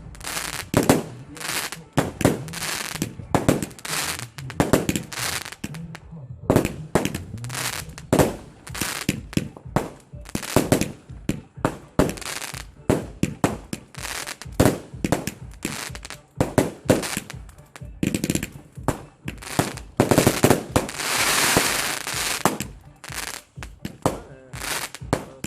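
New Year's Eve fireworks and firecrackers going off: a rapid, irregular string of sharp bangs, with a longer hissing crackle lasting about two seconds some twenty seconds in.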